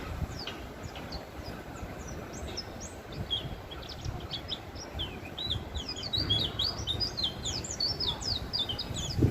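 A white-eye (pleci) twittering: quick, thin, high chirps that come thicker and faster in the second half, over a low background rumble.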